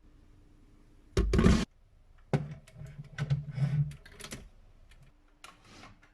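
Handling noises: a brief rushing burst about a second in, then a run of clicks, knocks and short rustles, with a couple more clicks near the end.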